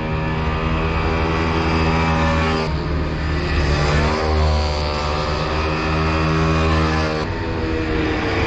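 Racing minibike engines running at high revs, a steady engine drone whose pitch changes abruptly about three seconds in and again near the end.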